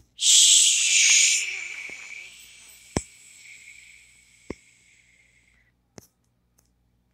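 A loud hissing rush of noise starts just after the beginning, holds for about a second, then fades slowly over about four seconds. Three sharp taps fall in the fading part, about one and a half seconds apart.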